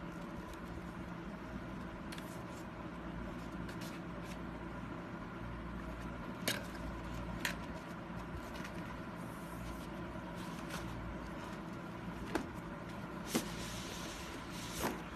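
Cardboard packaging being opened and handled: a handful of sharp clicks and taps from the box, and a short scrape of the inner box sliding out of its sleeve near the end. A steady hum runs underneath throughout.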